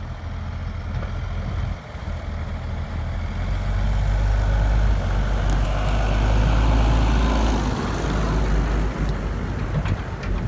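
Fendt 718 tractor's six-cylinder diesel engine running as it drives past towing a silage trailer, growing louder towards the middle and easing off near the end.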